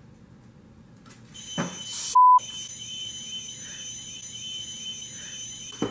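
A knock about a second and a half in, then an alarm starts as the laser tripwire is tripped: steady high tones with a warbling, siren-like pattern under them, continuing through the rest. A short, very loud beep cuts in briefly just after the alarm starts.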